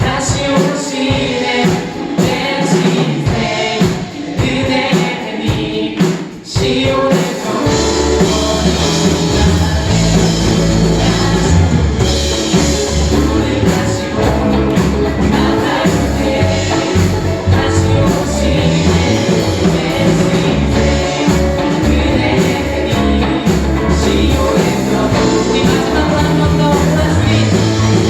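A church praise band and singers performing a Korean worship song live. The accompaniment is light at first, and the full band with a heavy bass comes in about seven seconds in.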